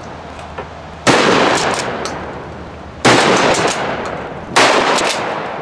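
Three shotgun shots, about two seconds and then a second and a half apart, each trailing off slowly.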